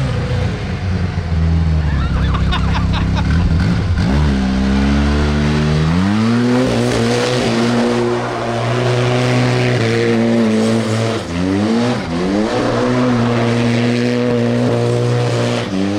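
Big-turbo Z1 engine in a four-seat side-by-side running low and rough at first, then revved hard from about four seconds in and held at high revs while the machine spins donuts on asphalt. Its pitch drops briefly and climbs again twice in the second half.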